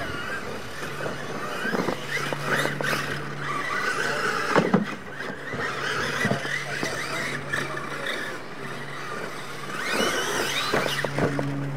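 Losi LMT radio-controlled monster trucks racing on dirt: their electric motors whine, rising and falling in pitch with the throttle, over the scrabble of tyres in loose dirt. A sharp thud of a jump landing comes a little before the middle, with a steady low hum underneath.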